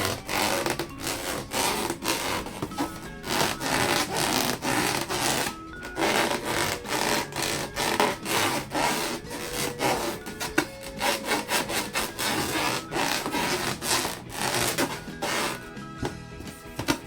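Hands rubbing rubber balloons in a rapid series of scraping rubbing strokes, with two short pauses.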